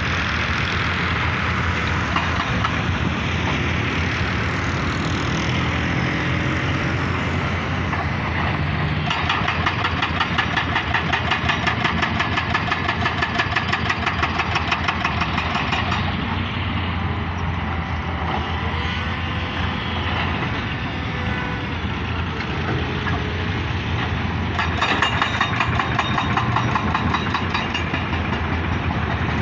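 Diesel engines of heavy dump trucks and excavators running. A steady low engine rumble comes and goes with a fast rhythmic clatter, louder from about nine to sixteen seconds in and again near the end.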